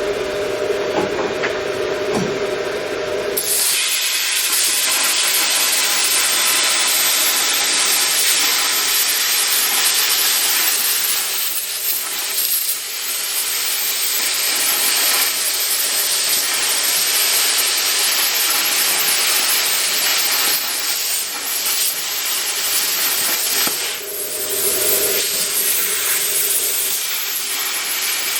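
Plasma cutter cutting steel plate: a loud, steady hiss of the arc and air stream. It starts about three and a half seconds in and runs with brief dips. Before it, and again briefly near the end, a lower hum with a steady tone is heard.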